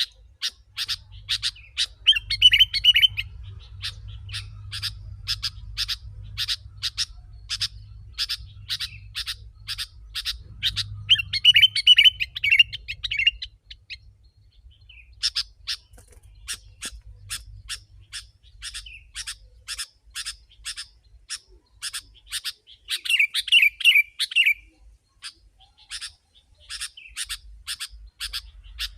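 Sooty-headed bulbul (kutilang) calling in a quick, steady series of sharp chirps, a few each second. Three louder warbled, chattering phrases break in: near the start, around the middle and about five seconds before the end.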